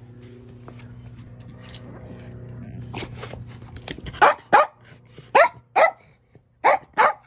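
A small Bichon Frise–Cairn Terrier cross dog growls low and steadily, getting louder for about four seconds, then breaks into sharp barks, six of them in quick pairs.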